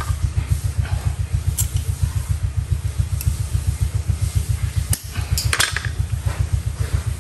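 Several sharp metallic clicks of pliers bending and snipping galvanised wire for a rat-trap frame, over a steady, fast low throb of a motor running.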